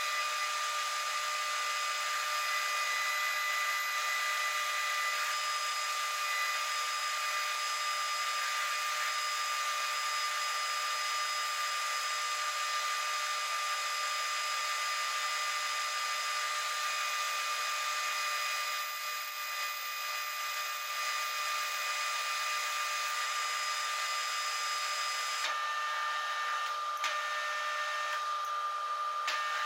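Metal lathe running, turning a steel tube in its chuck while the cutting tool works the end: a steady machine whine of several tones over a hiss. The sound shifts slightly near the end.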